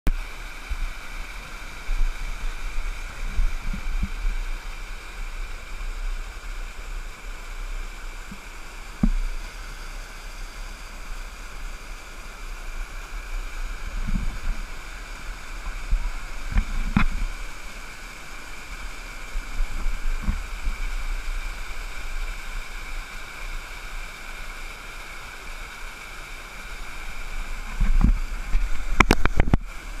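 Small waterfall rushing steadily over rock into a pool, with occasional low thumps and a few sharp clicks near the end.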